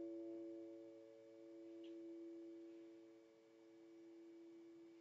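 The last note of the closing music ringing on and slowly dying away: a soft steady tone that swells and dips gently as it fades.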